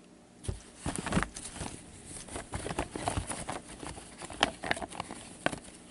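An irregular run of light clicks, taps and rustles, things being handled by hand, with a couple of sharper knocks among them.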